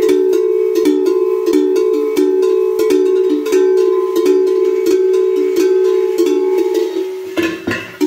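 Two hand-made sheet-metal goat bells shaken by hand, their clappers striking about three times a second over a low, lingering ring. Near the end the ringing thins and a low knock is heard as a bell is handled.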